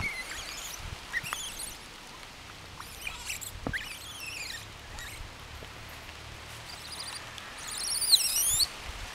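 Gray langur infants squealing: a string of short, high-pitched, wavering squeaks, the loudest near the end, over a faint steady hiss.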